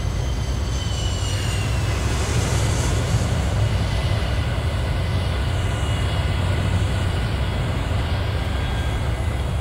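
Jet aircraft engines: a steady low rumble with a high whine that falls in pitch over the first two seconds, then a steady hiss and fainter whine.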